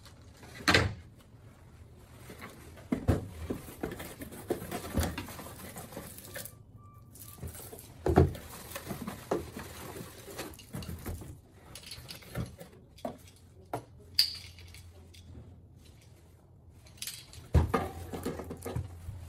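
Cardboard boxes and packed e-bike conversion kit parts being handled: irregular knocks, rustles and light clatter. The loudest knocks come about a second in, around eight seconds and near the end.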